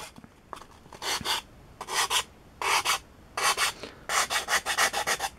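Small metal file rasping across the edge of a sheet of Balsa Foam, a soft phenolic carving foam. It makes separate strokes about one every second at first, then quicker, shorter strokes near the end.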